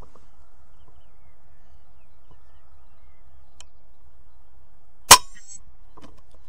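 A single shot from an FX Crown .22 PCP air rifle, fired about five seconds in: one sharp crack with a brief ringing tail.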